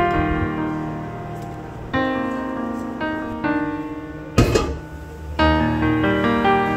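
Background piano music: phrases of gently struck notes and chords that ring and fade. A brief noisy burst cuts through about four and a half seconds in.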